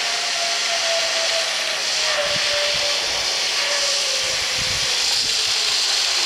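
Zip-line trolley running along the steel cable as a rider comes in: a steady hiss with a whine that falls slowly in pitch.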